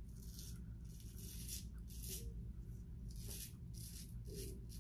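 Global Shave Club Hurricane double-edge safety razor scraping through lathered stubble on the chin and jaw: a run of short, faint, rasping strokes, about two a second, in bursts.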